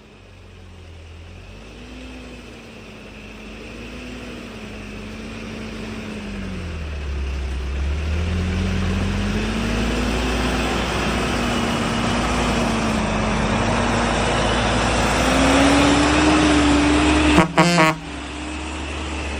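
Loaded dump truck approaching, its engine and road noise growing steadily louder with the engine note rising and falling. Near the end comes one brief, loud horn blast.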